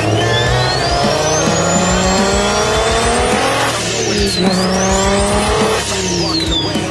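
Performance car engine accelerating hard: the revs climb steadily, drop sharply at a gear change about four seconds in, climb again, then fall away near the end as the throttle eases. A high whine rises and falls with the revs.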